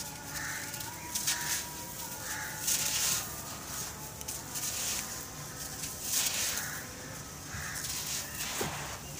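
Dry sand clumps crunched and crumbled by hand, the loose grains pouring and trickling down onto a heap of sand in a series of short gritty bursts.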